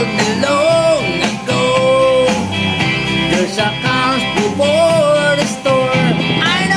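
A song with guitar accompaniment and a steady beat, a voice carrying the melody over it.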